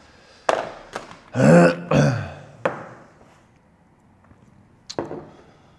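A man's short wordless vocal sound, like a throat-clear, about a second and a half in, its pitch falling. Light knocks and clicks of objects being handled and set down on a desk come before and after it.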